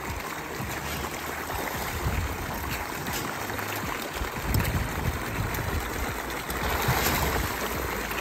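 A dense crowd of koi thrashing at the pond surface as they feed, a continuous churning splash of water. It swells a little about halfway through and again near the end.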